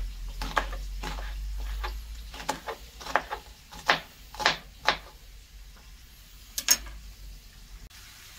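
Knife slicing green peppers on a plastic cutting board: a run of sharp taps as the blade hits the board, roughly two a second, thinning out after about five seconds.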